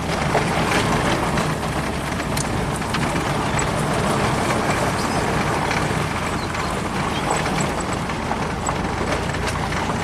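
1991 Ford Probe's Vulcan V6 running steadily under way, with road and tyre noise, heard from inside the cabin. A few light ticks sound over the steady drone.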